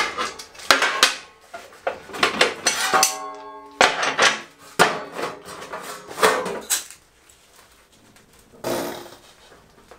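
Hammer blows on sheet metal clamped at a bench edge, bending it over into a flange: about eight sharp metallic clangs over six seconds, one leaving a short ringing tone. The blows stop about two-thirds in.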